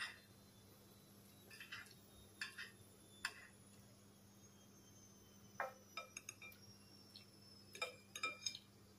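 Metal spoon and fork clinking and scraping against a dinner plate while eating, in faint scattered clicks that come in small groups, the busiest cluster near the end.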